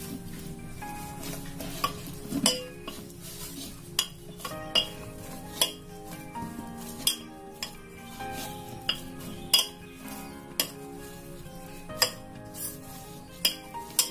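Dough being kneaded by hand in a stainless steel bowl: irregular sharp metallic clinks and knocks against the bowl, roughly one a second, each with a short ring.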